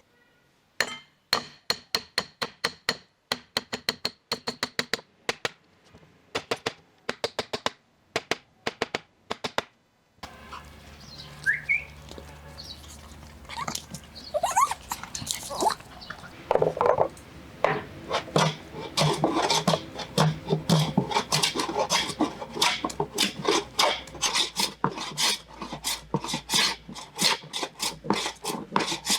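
Hand tools working a wooden board: runs of sharp knocks with short pauses between them. From about ten seconds in, a steady background noise comes up and fast scraping strokes take over, with a few brief rising squeaks.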